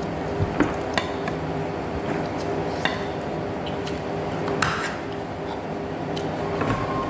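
Wooden chopsticks stirring noodles in a ceramic bowl, with scattered light clicks and taps against the bowl, over a steady background hum.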